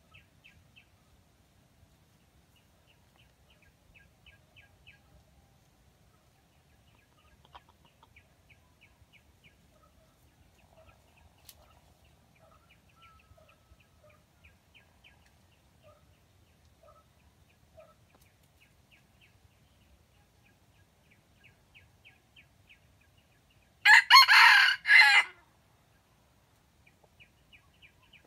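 Red junglefowl cock crowing once near the end, a short loud crow of about a second and a half. Before it there are only faint low clucks.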